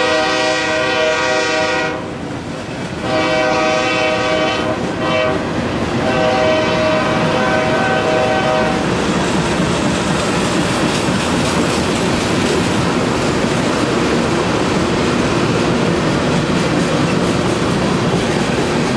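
Freight cars of a CSX mixed freight rolling past with steady wheel-on-rail noise and clickety-clack, while a locomotive horn sounds the grade-crossing pattern of long, long, short, long, ending about nine seconds in.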